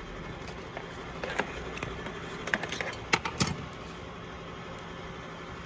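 A handful of short, irregular clicks and knocks from hand tools and trim parts being handled during work on a pickup's dashboard, the loudest a little after the middle, over a steady background hum.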